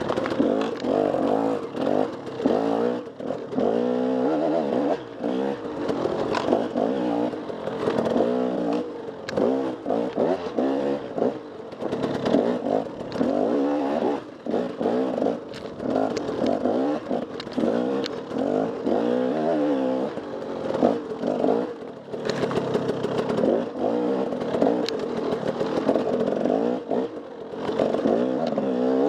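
Dirt bike engine revving up and down constantly, the pitch rising and falling every second or so, with frequent clatter and knocks as the bike works over rough ground.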